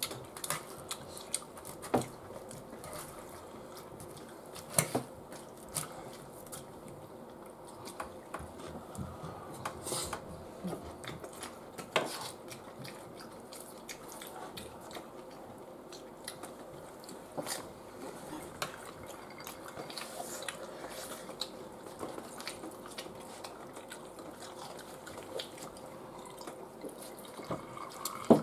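Eating sounds: forks clicking and scraping on a metal baking tray of oven-baked nachos, with tortilla chips being picked up, bitten and chewed, in scattered sharp clicks at irregular intervals.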